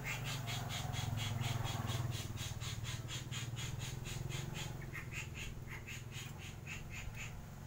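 Animal calls repeating rapidly and evenly, about five a second, over a low steady hum.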